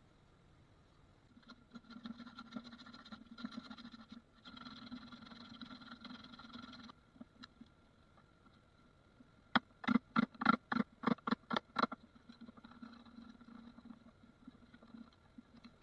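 Hand tools cutting a rabbet in pallet wood: two long steady passes of cutting, then a quick run of about ten short, sharp strokes, about four a second.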